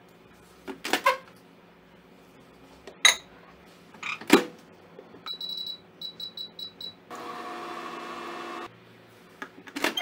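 Samsung microwave oven: a few sharp knocks and clicks of the door and bowl, then the keypad beeping, one longer beep and about six short ones, as the time is set. The oven then hums steadily for about a second and a half before the door latch clicks again near the end.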